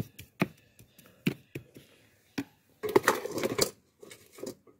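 Small hand trowel scraping and tapping in potting mix, spreading a top layer of old humus over the substrate: a series of short, sharp scrapes and taps, with a denser crunching stretch about three seconds in.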